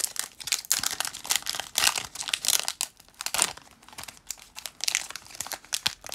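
Foil wrapper of a Pokémon trading-card booster pack crinkling and tearing as it is opened and the cards are pulled out, a run of irregular crackles.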